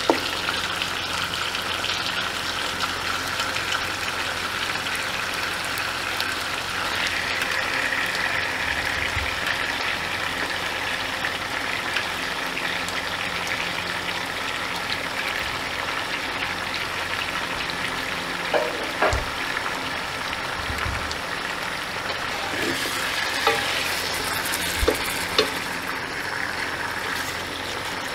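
Raw pieces of country chicken sizzling in hot oil with fried onions, a steady frying hiss. A few short knocks come in the second half.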